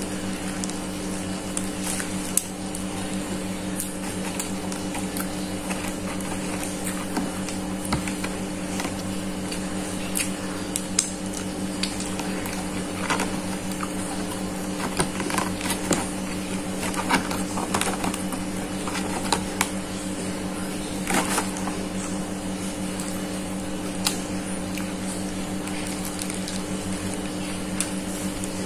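Eating sounds: chewing, small crunches and the rustle of a paper food wrapper and cardboard box, heard as scattered short crackles and clicks. A steady low hum runs underneath.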